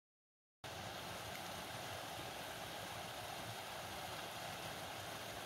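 Small mountain stream splashing and trickling over rocks, a steady rush of water that cuts in abruptly about half a second in after silence.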